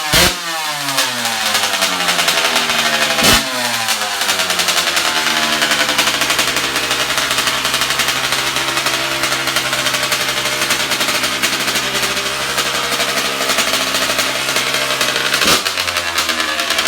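Snowmobile engine blipped sharply at the start and again about three seconds in, its pitch falling away after each blip. It runs at a steady pitch through the middle and is blipped again near the end.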